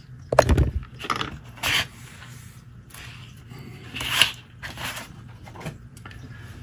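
Crafting handling noise on a cutting mat: a knock about half a second in, then several short scraping and rustling strokes, the loudest about four seconds in, as an ink blending tool is rubbed on paper and the paper sheet is slid across the mat.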